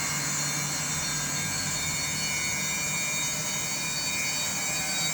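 Samsung WW90K5410UX front-loading washing machine running with its drum spinning: a steady whir with a high-pitched whine layered over a low hum.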